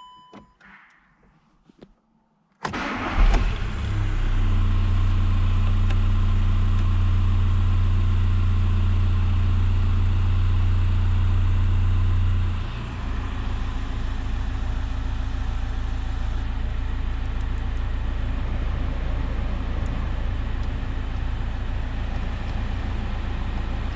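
VW Passat B6 TDI diesel engine starting up after a couple of seconds of quiet, catching at once, then idling steadily. About ten seconds after it starts, the running note changes and becomes a little quieter, and it idles evenly from then on.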